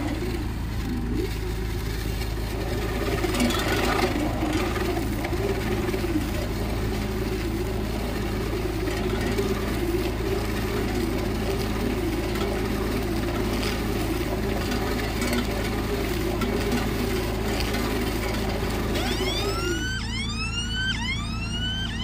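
Mini silage baler-wrapper running, its motor-driven drive giving a steady low hum with a wavering tone as the bale turns and takes on stretch film. Near the end, a quick series of whistling glides comes in, like a siren.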